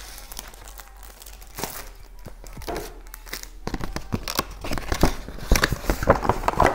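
Packaging of a laptop screen protector, a cardboard sleeve and plastic film sheets, rustling and crinkling as it is handled and the sheets are pulled out. The rustling grows louder and busier in the second half.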